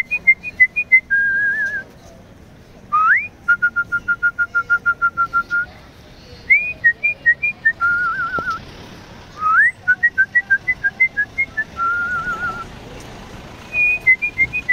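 Clear, pure whistled phrases that come about every three seconds. Each is a run of short notes or a quick upward swoop, followed by a rapid even string of pips or a wavering held note.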